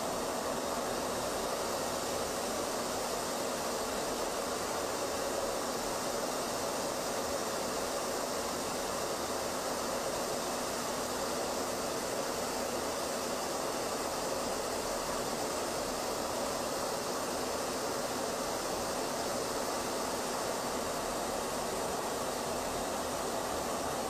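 Steady rushing noise of an aircraft in flight, the airflow and engine noise of the camera aircraft flying alongside, even in level with no changes.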